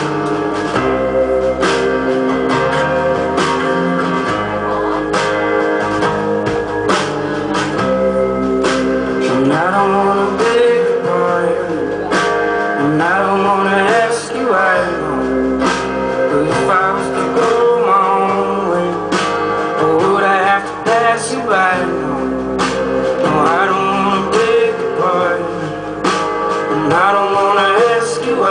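Live folk music: acoustic guitar played steadily, with a man's voice singing over it through the later part.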